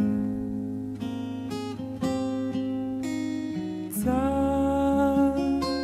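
A soft pop ballad playing, with acoustic guitar in the gap between sung lines; a new chord comes in about four seconds in.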